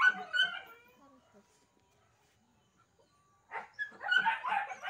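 Dog barking: a few barks at the start, a quiet gap, then a quick cluster of barks near the end.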